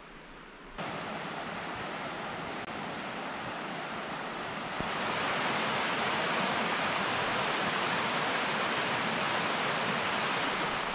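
Steady rush of fast-flowing river water, growing louder about five seconds in and cutting off suddenly near the end.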